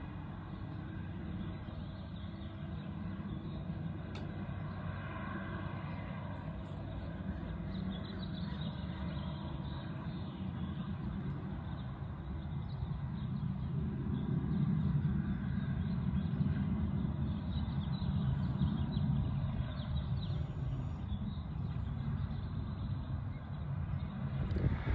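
Tracked Timbco forestry machine's diesel engine and attachment droning steadily from far off as it works the brush, growing somewhat louder about halfway through.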